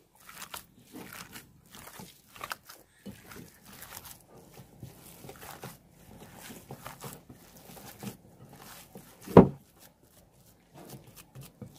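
Hands kneading and squeezing a wet minced chicken kabab mixture with gram flour in a bowl: irregular soft squelching and crunching strokes. A single much louder thump about nine seconds in.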